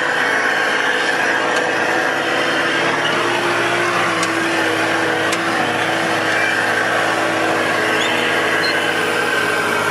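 Engine of a front-loader or similar work machine running steadily, heard from inside its cab, with a constant whine over the engine note.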